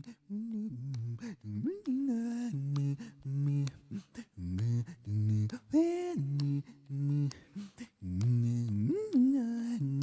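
A man's voice singing a wordless melody, holding notes and gliding between them, with short sharp mouth-percussion clicks between the phrases.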